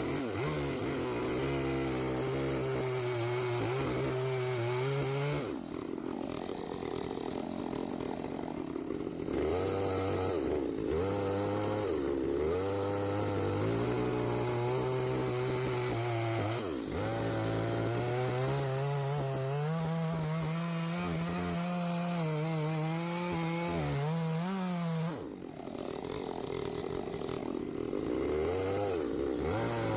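Two-stroke chainsaw running under load while ripping cedar into slabs, its engine pitch rising and falling with the cut. It eases off briefly about five seconds in and again near twenty-five seconds.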